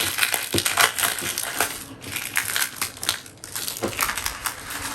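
Packet of decoupage paper being handled and opened, its paper and packaging crinkling with many irregular small crackles and rustles.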